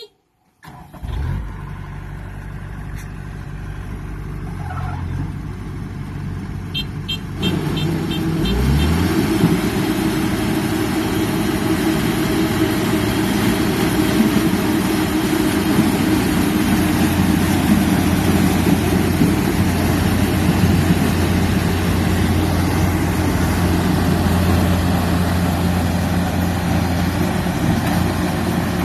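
Kubota DC-93 combine harvester's diesel engine running. It rises in pitch and gets louder about eight seconds in, then settles into a loud, steady drone at working speed.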